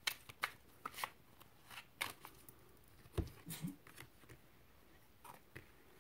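Tarot cards being shuffled and handled: a string of quick, irregular card flicks and snaps, most of them in the first two seconds, with a soft thump about three seconds in.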